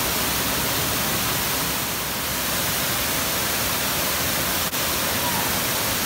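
Steady rush of a waterfall pouring into a rock pool, with a momentary dropout just before the end.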